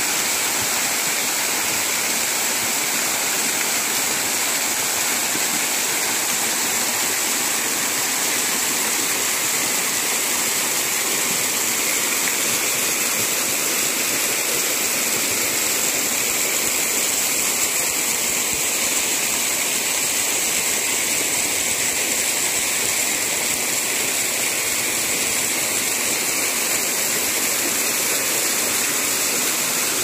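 Waterfall: the steady, full rush of falling water, holding an even level throughout.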